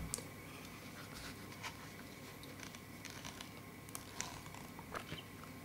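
Faint paper rustling and light ticks of a book's pages being handled and turned, with a few more ticks around four to five seconds in.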